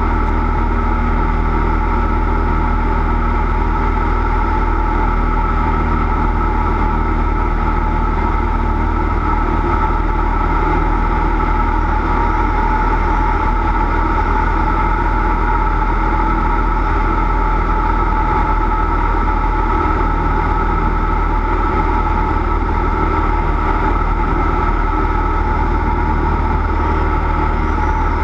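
Cessna 172's piston engine and propeller running at a steady speed: an even drone with a steady whine above it.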